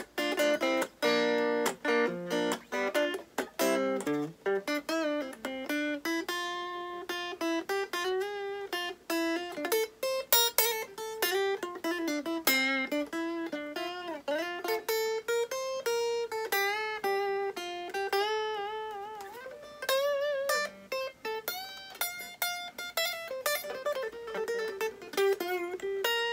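Electric guitar playing an improvised single-note lead line: quick picked runs, then held notes bent and shaken with vibrato.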